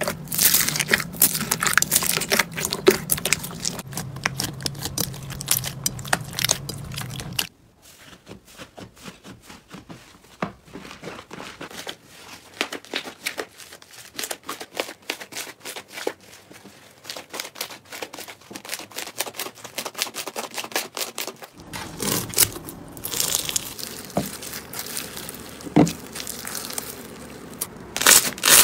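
Slime being squeezed and kneaded by hand, crackling and crunching: first a foam-bead (floam) slime crunching loudly under a pressing hand, then a quieter run of small rapid crackles as a fluffy slime is stretched and torn. About three-quarters of the way through it turns louder again as a bead-filled crunchy slime is pressed, popping and crackling.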